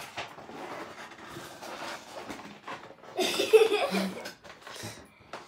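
Cardboard box and packaging insert rustling and scraping as a Nerf blaster is tugged out of its box, louder for a moment about three seconds in.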